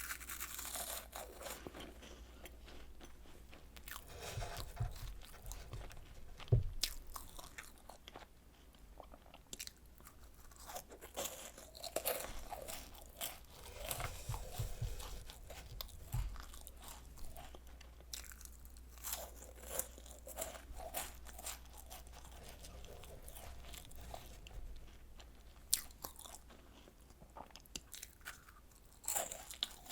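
Close-miked biting, crunching and chewing of Home Run Ball cookies made extra crisp in an air fryer, with irregular sharp crackles and a few dull thuds.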